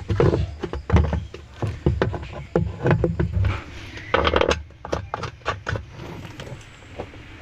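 Irregular knocks, clicks and handling clatter from work on a washing machine. They are busiest in the first few seconds and grow quieter near the end.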